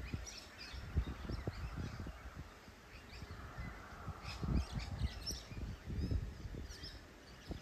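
Birds chirping with short, scattered high calls, over irregular low gusts of wind buffeting the microphone.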